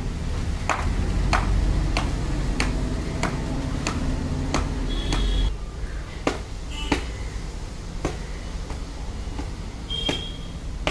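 Manual caulking gun clicking in an even rhythm, about one click every half second or so, as its trigger is squeezed again and again to push windshield adhesive out along the frame. A low rumble underneath stops about halfway, and a few short high pings sound.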